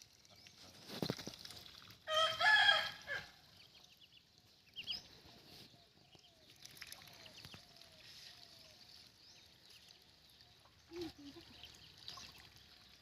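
A rooster crows once about two seconds in, a loud call lasting about a second, followed by a string of faint short calls from poultry.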